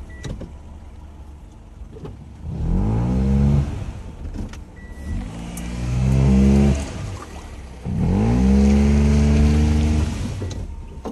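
Daihatsu Mira e:S's small three-cylinder engine revving up three times, each rise quick and held for a second or two before it drops back, as the front-wheel-drive car is pushed over rough off-road ground.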